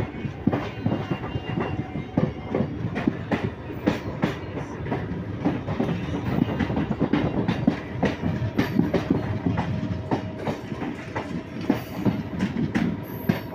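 Passenger train's wheels clattering over rail joints and points at speed, heard from on board: a dense, irregular clatter over a steady rumble.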